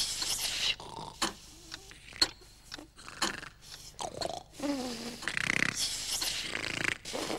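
Cartoon sleeping creature snoring: a run of rasping breaths in and out with a few sharp clicks, and a wobbling snort that slides down in pitch about five seconds in.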